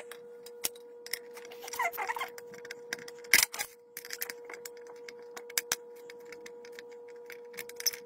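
Small scattered clicks and taps of fingers and a screwdriver working the screws and metal mounting plate of a humidifier's small fan motor, with one louder clatter about three and a half seconds in. A faint steady hum runs underneath.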